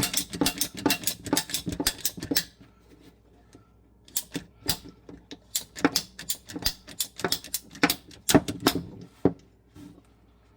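Rapid, irregular clicks and knocks of a hand tool working on and cutting the old ice-maker supply line under the sink. They come in two runs with a quiet gap of about a second and a half near the start.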